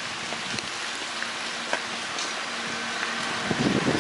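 Heavy rain falling on paving and puddles: a steady hiss with scattered drops splashing. A brief low rumble comes near the end.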